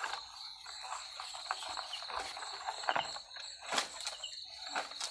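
Night insects chirping in a steady high-pitched drone, with irregular close rustles and clicks over it.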